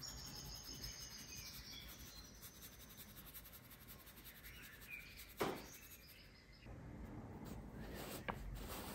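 Faint room tone with a few faint high chirping tones and a single sharp click about five and a half seconds in.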